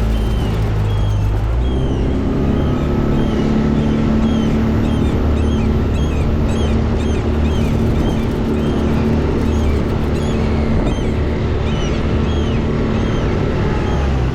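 Small boat's outboard motor running steadily, its note shifting about two seconds in, with a flock of terns and gulls calling over it in many short, high cries.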